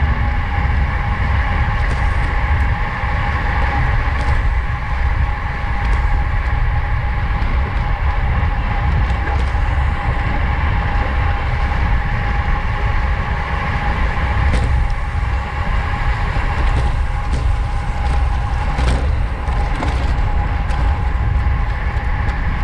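Wind rushing over a racing bicycle's on-board camera microphone at race speed, a steady rumble with a constant hum riding on it.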